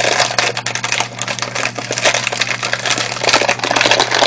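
Thin plastic bag of peanuts crinkling and rustling as it is squeezed and twisted by hand, with rapid crackling and clicking from the peanuts inside.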